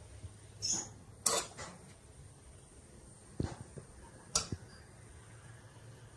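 Thin spring-roll wrapper rustling twice as it is peeled off the stack about a second in, then a metal spoon clicking a few times, in two pairs, as vegetable filling is scooped and laid on the wrapper.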